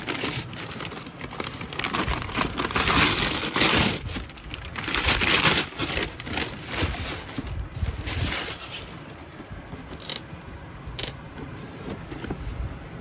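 Brown paper mailer bag being torn open and crinkled, loudest in the first half, as a cardboard shoe box is slid out of it. Quieter handling of the box follows, with two short taps.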